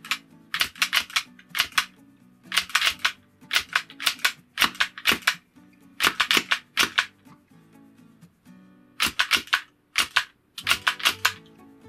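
Wooden rubber band machine gun firing in semi-automatic mode, each trigger pull letting its mechanism release a rubber band with sharp wooden clacks. The clacks come in quick clusters of a few at a time, repeated about seven times with short pauses between, over soft background music.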